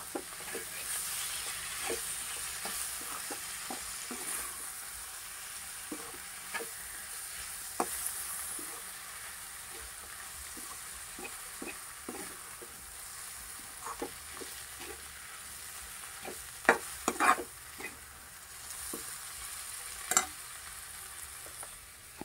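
Onions, bitter gourd and tomatoes sizzling steadily in oil in a metal kadai while a metal spoon stirs them, scraping and clicking against the pan. A few louder knocks of the spoon on the pan come near the end.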